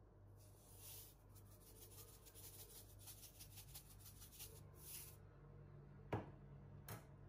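Salt shaken from a salt container: a faint, quick patter of grains for about five seconds, then two sharp knocks near the end.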